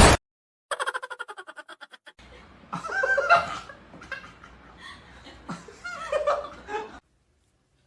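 A person laughing: first a rapid run of short ha-ha pulses, then more laughing and voice over a low background hiss, cutting off suddenly near the end. The tail of a loud burst ends right at the very start.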